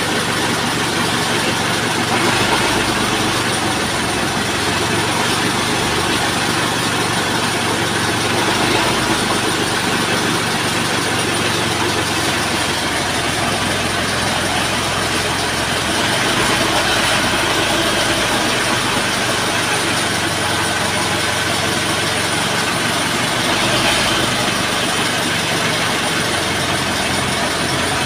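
Boom truck's diesel engine running steadily while it powers the hydraulic crane lifting a truck cab, swelling slightly a few times as the crane works.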